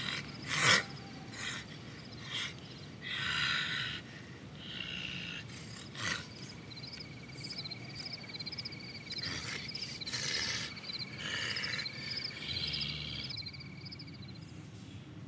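Night ambience with insects: a steady high chirping trill sets in about six seconds in and stops shortly before the end. Before it come several short raspy hissing bursts, with a sharp click about a second in.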